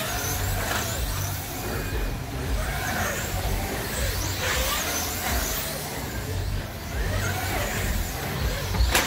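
Wing slot cars lapping the track, their small electric motors whining in pitch arcs that rise and fall as the cars come past. A sharp knock comes near the end.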